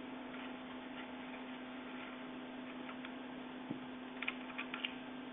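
Light metallic clicks and ticks, a short cluster about four seconds in, as a bolt is worked out of a scooter's pedal hinge, over a steady faint hum.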